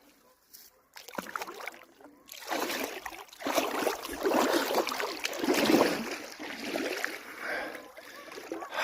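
River water splashing and sloshing as a person moves through it, starting about two seconds in and easing off near the end.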